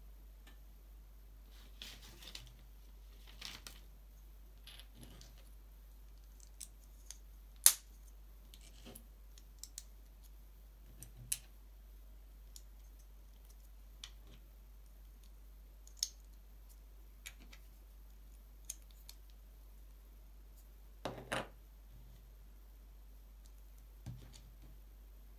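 LEGO plastic bricks being handled and pressed together: scattered small clicks and light clatter, with one sharp snap about a third of the way in and a short flurry of clicks later on.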